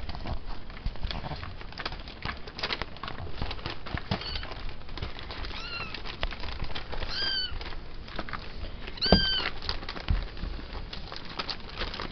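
Bengal-cross-Persian kittens giving several short, high-pitched mews, the clearest about nine seconds in, over steady rustling of newspaper and claws scrabbling on a sisal scratching post as they play.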